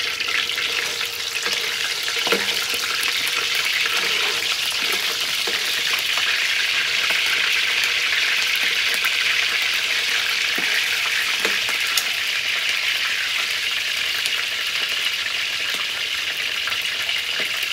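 Skinned field rats sizzling steadily as they fry in hot oil with garlic in a wok, with a few sharp clicks of metal tongs against the pan.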